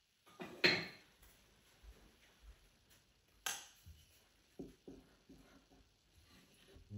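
Kitchen utensils and dishes being handled: a sharp clink about half a second in, another about three and a half seconds in, and a few lighter taps soon after.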